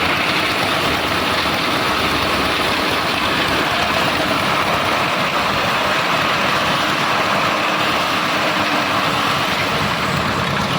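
Engine-driven concrete mixer running steadily, a constant engine drone with a dense mechanical noise that does not change.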